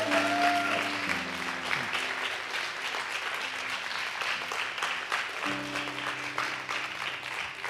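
Congregation applauding, a steady patter of many hands clapping, over soft background music of held chords that change a few times.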